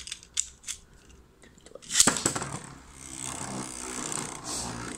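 A few light clicks, then about two seconds in a sharp crack as a Beyblade is ripcord-launched and hits a clear plastic stadium. The top then spins on the stadium floor with a steady whirring scrape.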